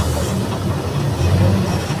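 Diesel engine of a Mercedes-Benz OF 1722M city bus running with a deep, uneven rumble that swells a little past the middle.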